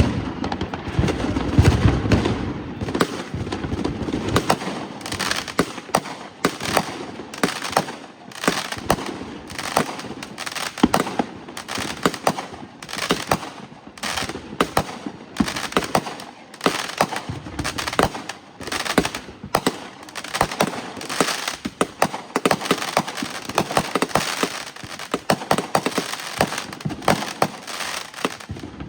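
Fireworks going off in rapid, irregular succession: many sharp bangs and crackles, with a deeper boom about two seconds in.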